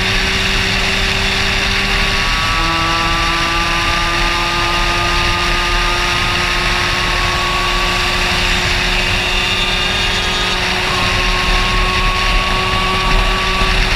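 Two-stroke Minarelli AM6 moped engine running hard at high revs, heard from the rider's helmet over heavy wind rush. Its pitch drops at a gear change about two seconds in and then climbs slowly as it pulls.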